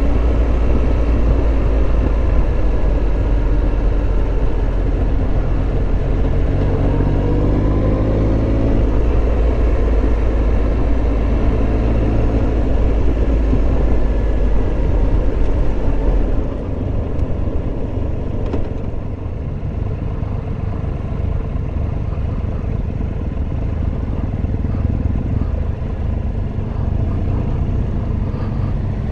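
Triumph Tiger Explorer 1200's three-cylinder engine running under way, with a low rumble. The engine note climbs as the bike accelerates between about six and nine seconds in. About sixteen seconds in the sound drops a little and turns rougher.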